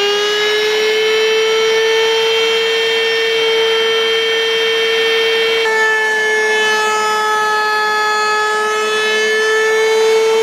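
Electric plunge router running at full speed with a steady high whine, its bit cutting into pallet wood. The tone shifts slightly about six seconds in.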